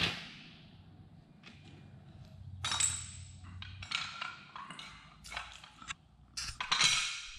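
Irregular metallic clinks, rattles and scrapes of steel winch cable, hook and tools being handled on a concrete floor, loudest about three seconds in and near the end.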